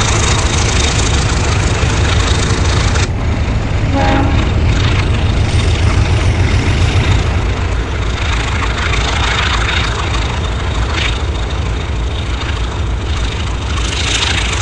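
Diesel locomotive running with a heavy, steady low rumble and broad mechanical noise, with a brief tone about four seconds in.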